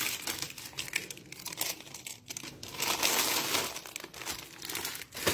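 Plastic Fita cracker packet crinkling as it is handled, in irregular bursts, loudest about three seconds in.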